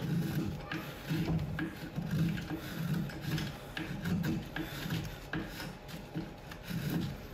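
Hand tool rubbing and scraping over the end of a wooden pickaxe handle in repeated strokes, about one to two a second, shaping the wood.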